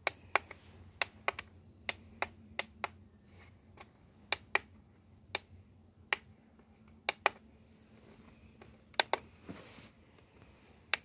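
Sharp plastic clicks from the push-buttons on a Magnavox portable DVD player's base being pressed, irregularly and often in quick pairs.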